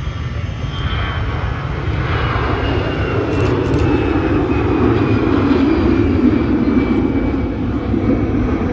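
An airliner's engines passing close by, the noise building to a peak about five seconds in. A high whine over the rumble falls slightly in pitch as the aircraft goes past.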